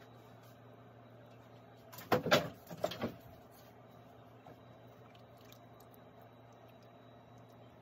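Handling noise: a quick cluster of knocks and rustles lasting about a second, starting about two seconds in, over a low steady hum.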